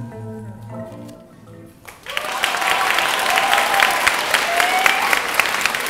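Sustained notes of the dance music dying away, then about two seconds in an audience breaks into applause, with a voice calling out over the clapping.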